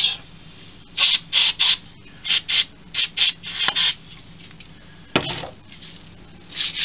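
Aerosol can of RP90 penetrating oil sprayed in a series of short hissing blasts, about eight in quick succession, then another near the end, working oil into a seized lathe part. A short knock about five seconds in.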